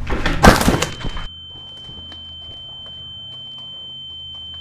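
A loud knock and scuffle as a head strikes a wall, followed by a steady high-pitched ringing tone over suddenly muffled surroundings: an ear-ringing effect for the blow to the head.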